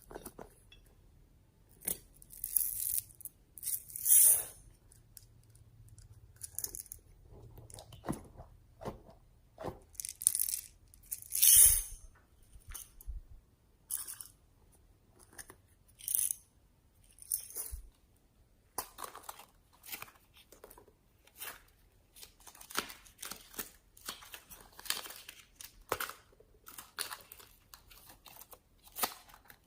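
Slime being squished and stretched by hand, with irregular sticky crackles and pops as air pockets burst. A couple of the squelches are much louder than the rest.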